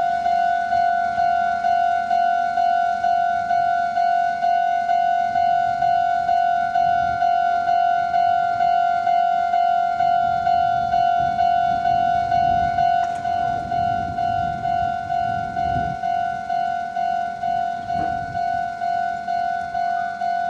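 Japanese railway level-crossing warning bell (the 'kan-kan' of the Meitetsu Bisai Line crossing) ringing in rapid, evenly spaced strokes of one steady pitch, signalling that a train is approaching and the barriers are down. A low rumble sounds underneath it in the middle.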